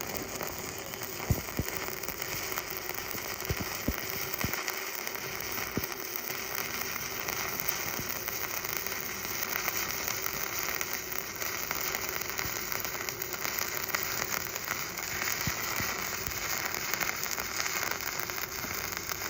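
Stick (shielded metal arc) welding arc burning: it strikes up suddenly at the start, then runs as a steady crackling hiss with occasional sharp pops.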